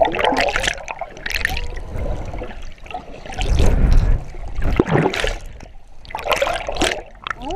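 Water splashing and trickling around a small boat, in irregular splashes.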